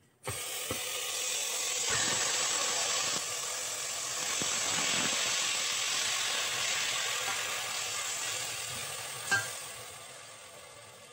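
Marinated mutton sizzling as it lands in a hot steel pot and is stirred with a spatula, with a few knocks of the spatula against the pot. The sizzle starts abruptly, holds steady, then fades near the end.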